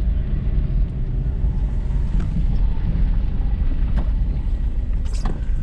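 Car engine and road noise heard from inside the cabin while driving slowly: a steady low rumble, with a single sharp click about four seconds in.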